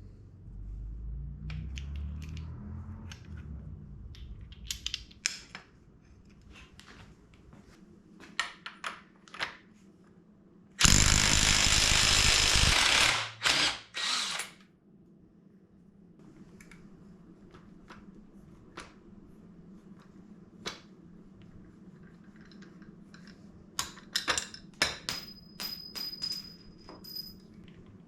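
Power tool running in one loud burst of about two and a half seconds, around eleven seconds in, then a shorter burst, among scattered sharp clicks of metal tools and parts being handled on a dirt bike.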